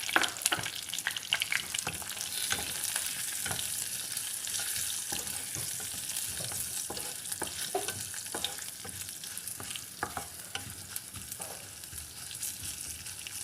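Garlic and tempering seeds sizzling in a little hot oil in a pan, a steady hiss with frequent small crackles, while a ladle stirs and scrapes the pan.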